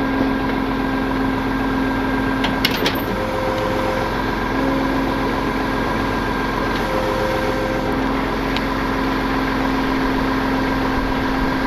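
Tow truck engine idling steadily, with a few sharp knocks nearly three seconds in.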